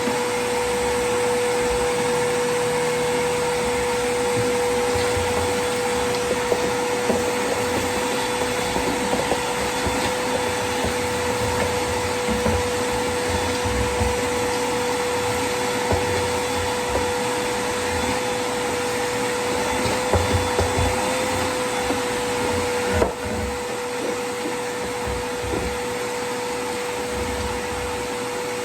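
Vacuum cleaner running steadily with a constant motor whine, with scattered small knocks and bumps. A louder knock comes near the end, and the sound is a little quieter after it.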